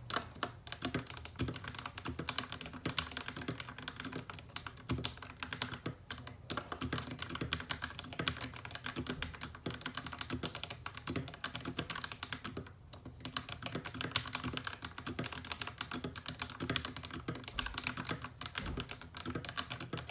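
Fast, continuous typing on a Royal Kludge RKG68 mechanical keyboard with Momoda-lubed Akko CS Rose Red linear switches. The key strikes are dense and fairly deep-toned, with no spring ping, and there is a brief pause about thirteen seconds in.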